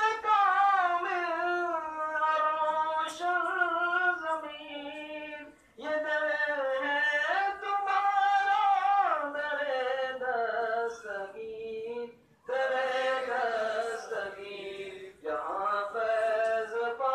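A single voice singing a slow devotional chant without words the recogniser could catch. It holds long, wavering, ornamented notes and breaks off briefly for breath about six and twelve seconds in.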